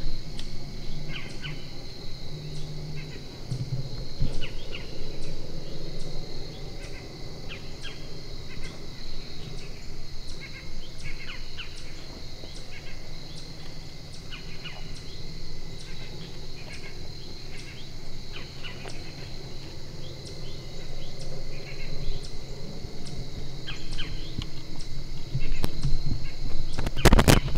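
Outdoor woodland ambience: small birds chirping on and off, with a faint, evenly spaced high ticking throughout and a short cluster of loud clicks near the end.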